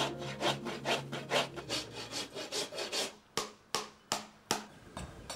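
Farrier's rasp filing a horse's hoof in repeated scraping strokes, about three a second.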